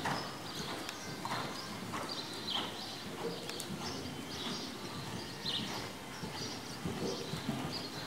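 Hoofbeats of a ridden horse cantering on the soft sand footing of an indoor riding arena, a steady run of dull thuds.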